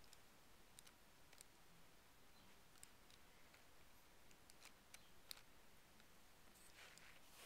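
Near silence broken by faint, scattered plastic clicks and ticks from a Lego Technic steering model being handled, with a small cluster of clicks near the end.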